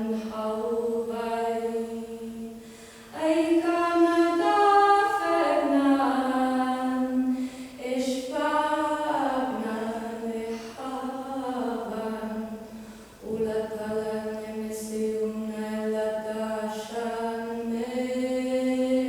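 Unaccompanied voices chanting long held tones, with several pitches sounding together and slow slides between notes. The sound thins out twice, about 3 s and 13 s in, then swells back in louder.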